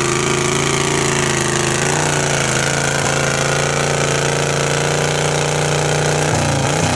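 Cub Cadet garden tractor engine running hard under load while dragging a pulling sled, a steady engine note with a fast pulsing rattle. The pitch dips briefly about two seconds in, and near the end the note drops off abruptly as the pull comes to a stop.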